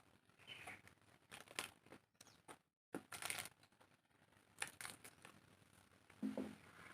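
Close-up eating sounds: chewing and crunching of food, with scattered wet mouth clicks. The sound cuts out completely for a moment about three seconds in.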